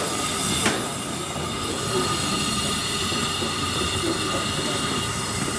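A 10¼-inch gauge miniature steam locomotive hissing steam as it is driven slowly along the track, with a steady high ringing tone running through the hiss.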